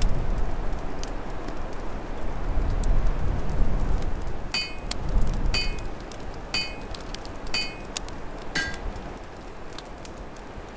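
Open log fire crackling under the low rumble of gusting storm wind, which eases off toward the end. About halfway through come five short ringing clinks, one a second, the last lower in pitch.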